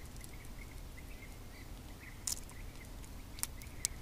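Quiet outdoor ambience: a low steady rumble of wind, a faint high chirping repeated many times, and three short sharp clicks from handling fishing tackle, about two, three and a half and four seconds in.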